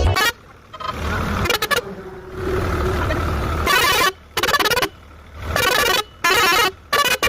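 Newly fitted air horn on a New Holland sounding: one longer blast, then several short, sharply cut-off blasts in quick succession.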